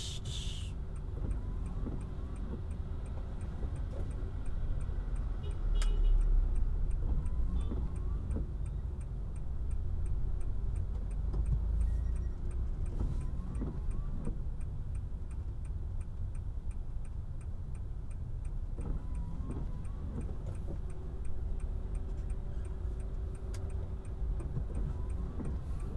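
Car turn-signal indicator ticking steadily inside the cabin, over the low rumble of the car's engine in stop-and-go traffic.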